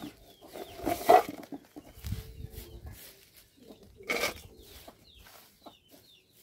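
Babaçu kernels scooped by hand off a tarp and dropped into a tin can, making irregular knocks and rattles, the loudest about a second in and again about four seconds in. Small birds chirp faintly in the second half.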